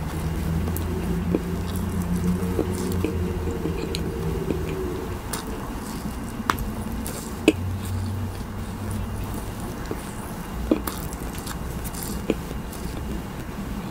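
Close-miked chewing of soft gummy candies: wet, squishy mouth sounds with a few sharp clicks and smacks, the sharpest about halfway through.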